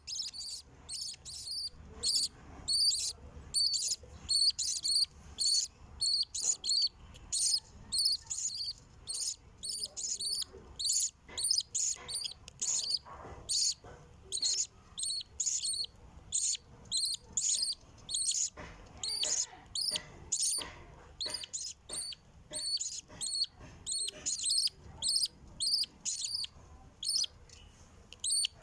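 Nestling birds giving high, thin begging chirps in a quick, steady series, two or three calls a second, as they are fed by the parent.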